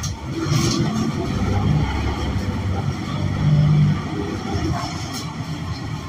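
Inside a Gillig city bus on the move: the Cummins Westport L9N natural-gas engine and Allison B300R transmission drone under road noise, swelling to its loudest a little after three seconds in and then easing off.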